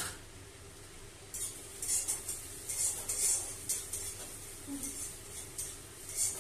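Metal kitchen utensils and dishes clinking and rattling as they are handled, a string of light, high clinks starting about a second in, over a faint steady hum.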